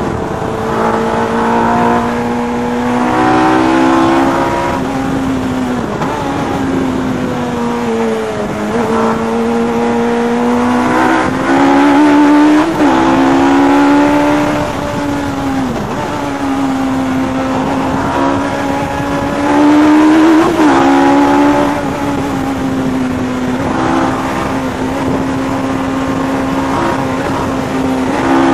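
Westfield Megabusa's Suzuki Hayabusa motorcycle four-cylinder engine under hard driving, heard from the open cockpit. The engine note climbs and drops several times as the car accelerates, shifts and lifts for corners, with louder full-throttle stretches.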